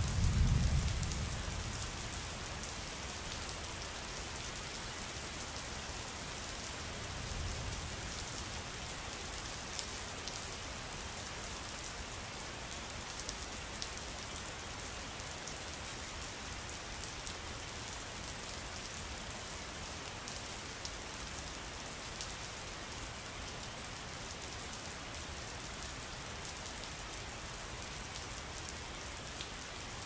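Steady rain, with a low rumble of thunder in the first couple of seconds and a fainter one about seven seconds in.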